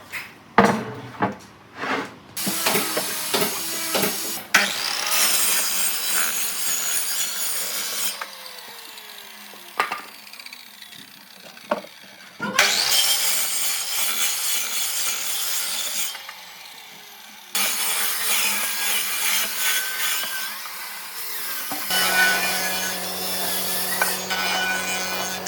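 Wood being sawn, in several separate stretches that start and stop abruptly. A few sharp knocks come in the first seconds, and a steady machine hum joins in near the end.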